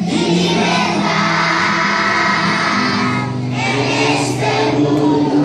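A large group of young schoolchildren singing a song together as a choir.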